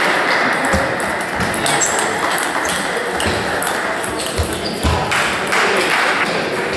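Table tennis ball clicking off bats and bouncing on the table in a rally, with the ping-pong of other tables and voices filling a large hall.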